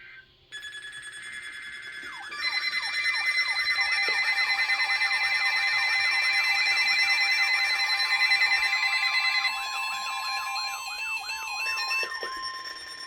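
Weather radio receivers going off together for a tornado warning. Steady alert tones start about half a second in. From about two seconds in the sound gets louder: a siren-like alarm sweeps up and down about three times a second over a steady tone near 1 kHz, the weather radio warning tone, with beeping tones on top. The alarm ends just before the close.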